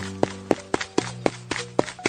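Background music: held low notes under a quick, even beat of light taps, about four a second.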